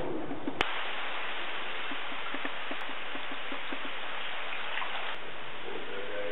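Rain falling on a pond's surface: a steady hiss with small scattered drop patters. It is broken by a sharp click about half a second in and another about five seconds in.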